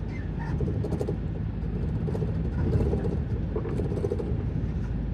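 Lorry engine and road noise heard from inside the cab while driving: a steady low rumble.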